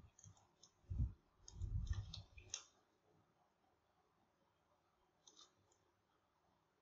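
Scattered clicks of a computer mouse and keyboard, mixed with a few soft low thumps in the first two and a half seconds, and a couple more clicks just after five seconds in.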